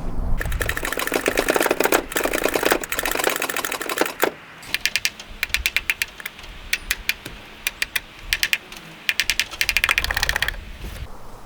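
Rapid mechanical clicking, a fast run for about four seconds, then short irregular bursts of clicks until near the end.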